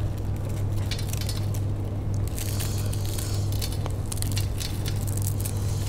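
Thin, dry kori roti rice wafers crushed and crumbled by hand: many small, irregular crisp crackles as the pieces break and drop onto a steel plate, over a steady low hum.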